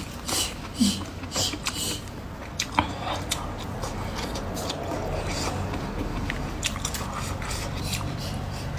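A person eating, biting and chewing, with many short clicks scattered through.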